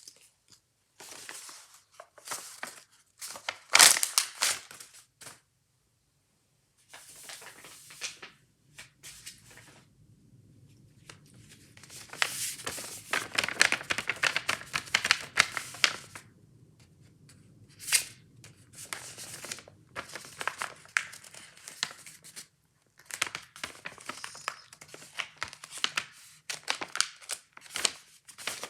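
Packaging of a fidget toy pack being torn open and crinkled by hand, in irregular bursts with brief pauses, the loudest tear about four seconds in.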